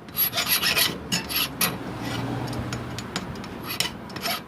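Metal ring of a sewing machine's shuttle assembly being rubbed down by hand in quick, uneven scraping strokes, smoothing off a raised edge and burrs that were breaking the thread.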